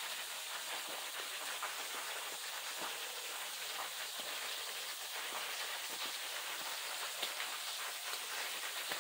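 Waterfall cascading: a steady, even hiss and splash of falling water.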